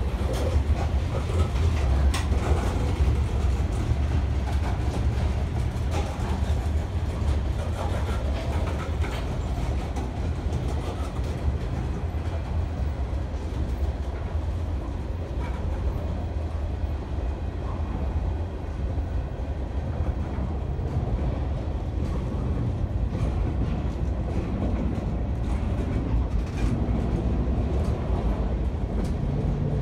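Freight train cars (covered hoppers, coil cars and a flatcar) rolling past on the near track: a steady low rumble with irregular clicks of steel wheels over the rail joints.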